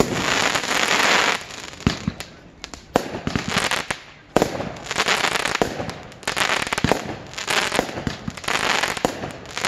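Aerial fireworks going off: a string of sharp bangs from launches and bursting shells, several followed by a second or so of dense hissing and crackling as the stars burn.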